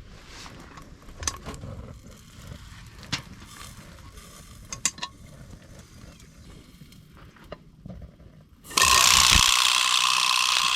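Scattered light clicks and taps, then near the end a loud sizzling hiss starts abruptly and holds steady.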